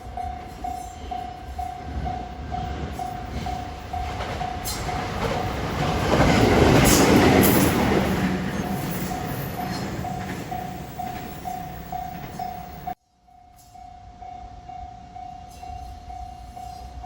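Japanese level-crossing warning bell dinging steadily while a JR 521 series electric train passes over the crossing. The train's running noise swells to its loudest about six to eight seconds in, then fades. The sound breaks off suddenly about thirteen seconds in, then the crossing bell carries on.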